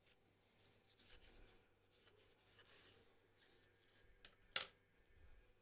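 Faint scratchy rubbing and scraping in short spells, then one sharp click about four and a half seconds in.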